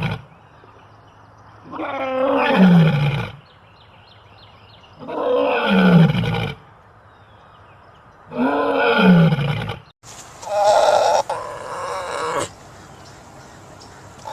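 A tiger roaring three times, each roar about a second and a half long and falling in pitch. About ten seconds in, the sound cuts abruptly to a different, higher-pitched animal call.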